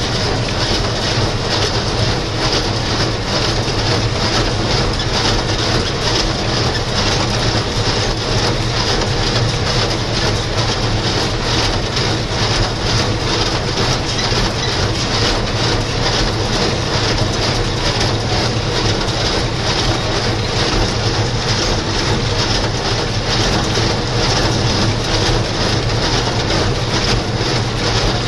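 John Deere 2140 tractor's diesel engine running steadily under load, driving a New Holland 268 square baler as it picks up and packs hay.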